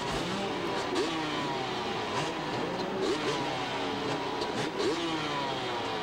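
Several two-stroke motocross bikes racing together, their engines revving up and down in overlapping rising and falling notes.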